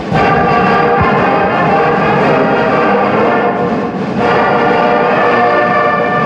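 Brass band playing loud, sustained chords that start abruptly, with a brief break about four seconds in.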